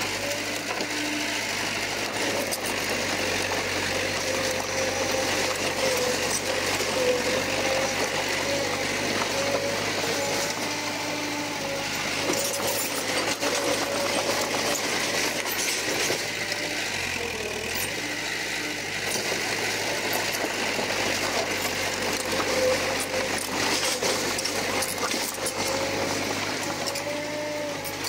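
Komatsu bulldozer running under work: a steady engine drone with a wavering whine, over a continual clatter of small clanks and rattles.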